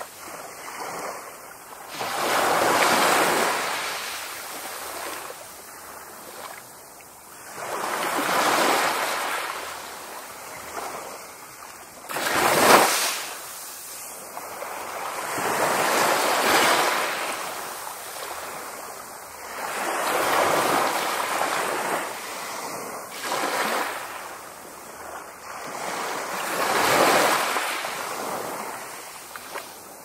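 Small sea waves washing onto the shore, a rush of water that swells and fades about every four seconds, with one sharper, louder splash a little before the middle.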